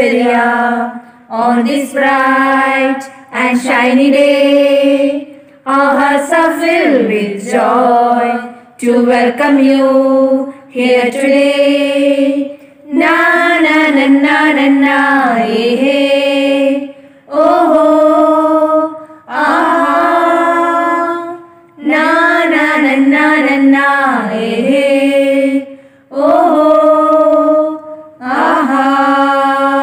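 A woman's voice singing a slow song without instruments, in phrases of one to three seconds broken by short pauses, with long held notes that bend in pitch.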